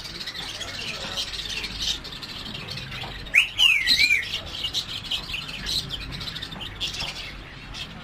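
Many caged birds chirping over one another, with a loud parakeet squawk that swoops up and down in pitch about three and a half seconds in.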